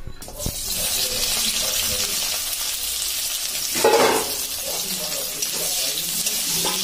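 Sliced onions sizzling in hot oil in a kadai: a steady hiss that starts as they drop into the oil. About four seconds in, a spatula stirs them with a short, louder scrape.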